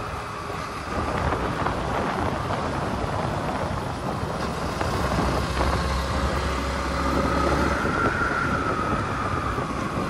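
Motorcycle engine running while riding on a road, its pitch dropping over the first half and climbing again about seven to eight seconds in as the speed changes, under a steady rush of wind noise.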